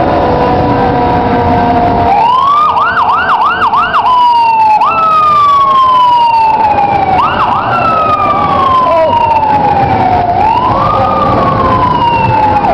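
Fire truck siren passing close by. After a steady tone for the first two seconds, it rises and pulses quickly four times. It then settles into long, slow downward sweeps, each starting with a sharp jump back up in pitch.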